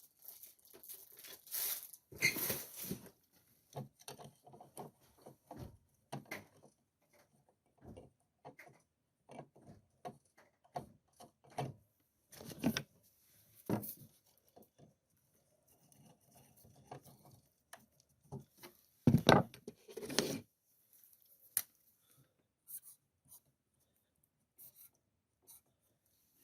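Irregular small clicks, knocks and rustles of hands at work on electrical outlet wiring and fittings, with two louder knocks about two-thirds of the way through.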